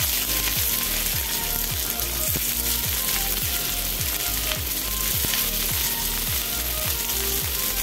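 Sliced onions sizzling as they fry in hot oil in a steel kadhai, a steady sizzle with more onions being added. A faint background music beat runs underneath.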